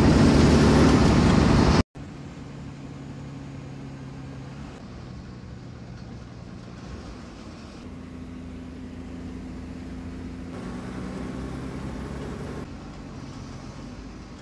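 Engine hum and road noise heard from inside an MSRTC state transport bus, in several short edited clips. The first two seconds are much louder, a rushing noise that cuts off abruptly.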